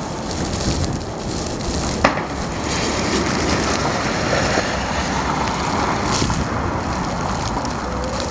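Blizzard wind blowing against the microphone, a steady rushing noise with low rumbling gusts, and one sharp click about two seconds in.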